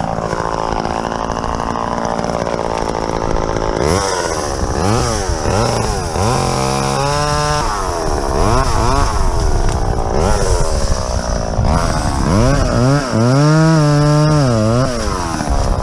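Chainsaw cutting into a leaning tree, revving over and over with its pitch rising and falling as it bogs in the cut, and running hard for a long stretch near the end. For the first few seconds an ATV engine idles steadily before the saw takes over.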